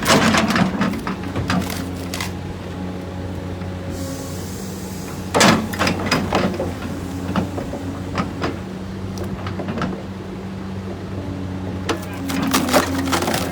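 An engine running steadily in the background, with irregular knocks and clattering impacts over it, the loudest near the start, about halfway, and near the end.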